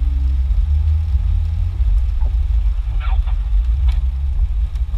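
Jeep engine running at low trail speed, a deep steady drone heard from inside the cabin, with a few light knocks and rattles in the second half.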